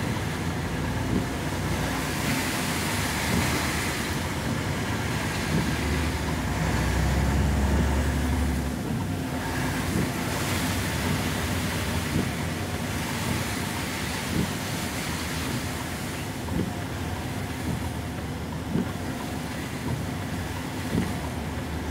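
Slow truck traffic on a wet, hail-covered road: a steady hiss of tyres and rain with truck engines running, a deep engine rumble swelling about six to nine seconds in, and a light knock every couple of seconds.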